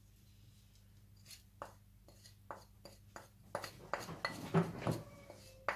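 Scattered light clicks and knocks of kitchen dishes and utensils being handled. They are sparse at first and come thicker from about three and a half seconds in, and a few near the end ring briefly like a clink.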